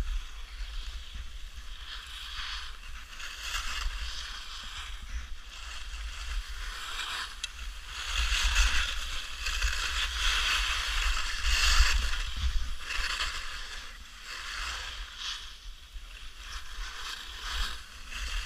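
Skis sliding and carving on packed snow: a hiss that swells and fades with each turn, louder about eight and twelve seconds in. Low wind rumble on the microphone runs underneath.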